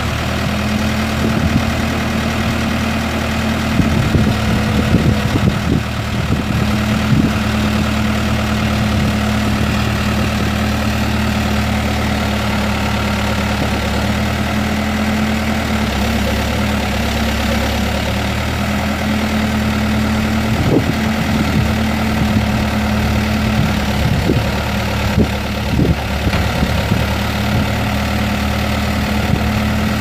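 Case four-cylinder diesel engine of a 2007 Case 590 Super M backhoe running steadily, with a steady tone over the engine note and a few scattered knocks.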